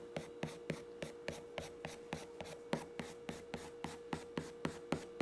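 Prismacolor colored pencil making quick, short diagonal strokes on paper, about four scratchy strokes a second, as rain lines are drawn over a charcoal-grayed sheet.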